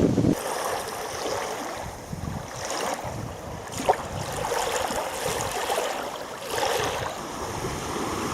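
Wind-driven waves splashing and washing against the reservoir shore, rising and falling in swells, with one short sharp click about four seconds in.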